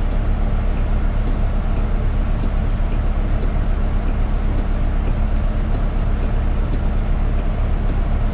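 Commuter coach's Cummins ISX12 inline-six diesel idling steadily while the bus is stopped, a constant low hum.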